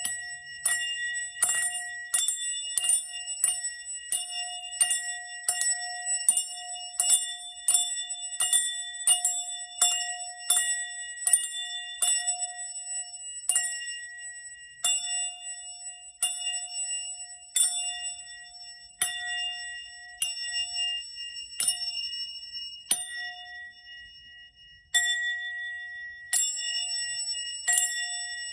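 A small bell rung over and over for sound healing, each strike ringing on into the next with the same clear tone. The strikes come quickly at first, then slow to about one a second from about halfway.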